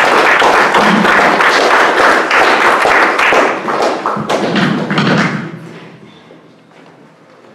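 Audience applauding, a dense patter of many hands that holds steady and then dies away about six seconds in. Thumps from the lectern microphone being handled on its stand come through over it.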